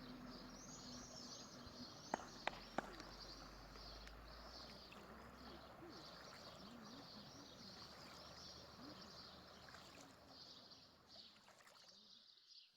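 Faint birdsong: many quick high chirps from small birds, with three short sharp clicks about two seconds in.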